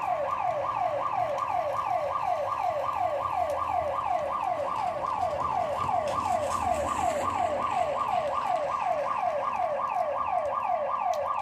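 Store security alarm siren going off, an electronic tone sweeping over and over in pitch, about three to four sweeps a second, without a break.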